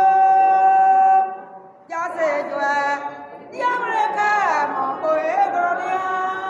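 An elderly woman singing unaccompanied: one long held note, a short break about a second and a half in, then more phrases that slide up and down in pitch.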